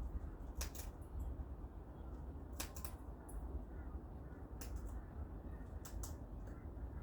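Cockatoos cracking and crunching food in their beaks: crisp snaps coming in pairs about every two seconds, over a steady low rumble.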